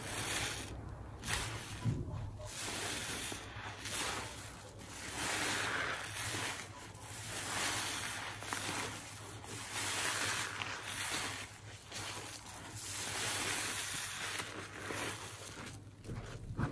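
Soap-soaked kitchen sponge squeezed over and over by gloved hands in a tub of thick suds: wet squelching squeezes, one every second or two.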